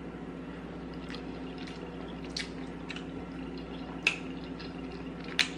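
A person chewing a bite of cheesy steak with wet mouth clicks and lip smacks. A scattering of sharp smacks, the loudest about four and five and a half seconds in, sits over a steady low hum.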